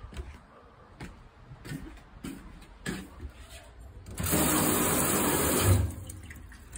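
Water rushing from a gooseneck tap into a stainless-steel sink for about two seconds, then shut off abruptly. A few light knocks come before it.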